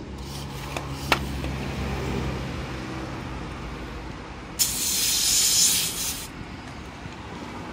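A loud hiss of spray lasting under two seconds, about two-thirds of the way through, over a steady low hum; a single sharp click about a second in.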